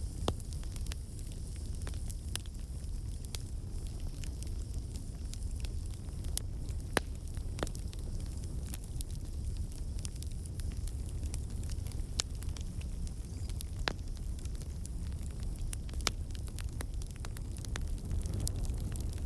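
Campfire burning: wood crackling with scattered sharp pops over a steady low rumble of the flames.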